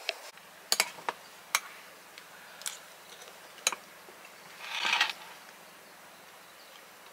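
A spoon clinking against a ceramic mug: about half a dozen sharp, separate clicks over the first four seconds. About five seconds in there is a short, soft hiss.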